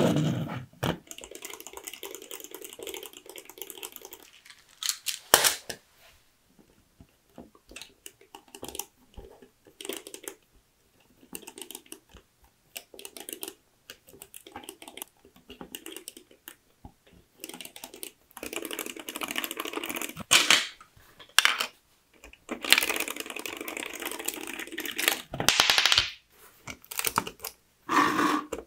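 LEGO bricks and Technic parts being handled and assembled: sharp plastic clicks and snaps as pieces are pressed together, with stretches of quicker rattling clatter from the parts and chain links.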